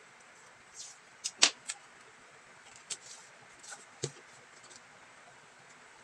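Cardboard being handled and laid flat on a table: a scatter of short crinkles and taps, the sharpest about a second and a half in and another about four seconds in.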